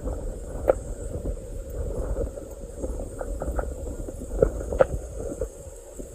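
Wind rumbling on the microphone, with scattered short sharp clicks, some in quick runs of two or three.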